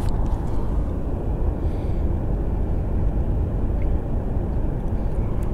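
Wind buffeting a camera microphone: a steady, loud low rumble.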